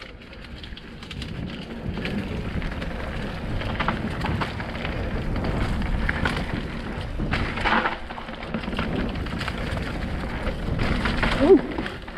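Mountain bike rolling fast down a dirt singletrack: a steady rumble of tyres on the trail and wind on the microphone, with scattered knocks and clatters from the bike over roots and stones, and a brief squeak near the end.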